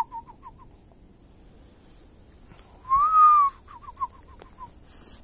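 A person whistling in phrases, each a long rising-then-falling note followed by a quick run of about six short falling notes. The tail of one phrase is heard right at the start, and a full phrase comes about three seconds in.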